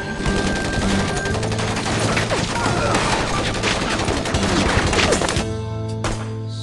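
Film soundtrack of sustained automatic gunfire, many rapid shots mixed over a music score. The shooting stops about five seconds in, leaving the music's held notes.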